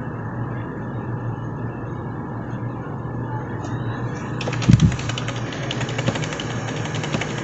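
Steady low hum of a newly assembled desktop computer running. About four and a half seconds in there is a single thump, followed by rapid light clicking like keyboard typing.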